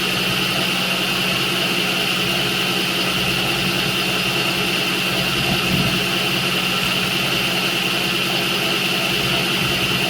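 Milling machine running, its end mill taking a light cut in a 7075 aluminum block: a steady hum with a constant high whine.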